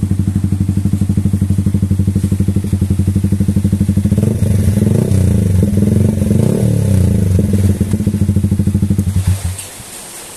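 Yamaha XSR155's single-cylinder four-stroke engine through a Smoke Muffler aftermarket exhaust, with a soft bass tone. It idles with an even pulse, then is revved up and down in several blips from about four seconds in, and the sound drops away suddenly near the end.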